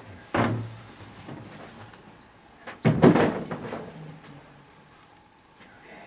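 A large whiteboard being moved and set against a wall, with a knock about half a second in and a louder double knock and clatter around three seconds in.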